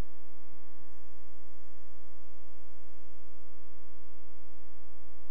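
Steady electrical hum on the soundtrack: an unchanging buzz with many even overtones over a deep low hum, with no change in level throughout.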